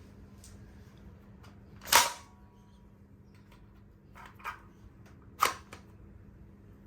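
Two sharp snaps about three and a half seconds apart from the Nerf Rival Fate XXII-100 blaster being tested, with lighter clicks and taps in between.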